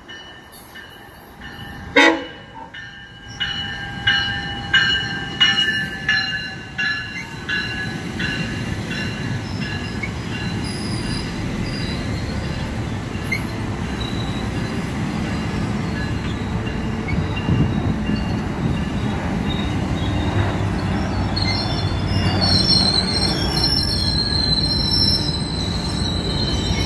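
Commuter train sounding its warning signal in a string of short, ringing notes about two-thirds of a second apart as it approaches, then the steady rumble of its bilevel coaches rolling past, with a high wheel squeal coming in near the end.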